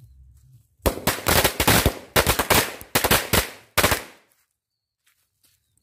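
A bundle of about forty small single-bang firecrackers going off together in a rapid, irregular string of loud bangs. The bangs start about a second in, last about three seconds and stop abruptly.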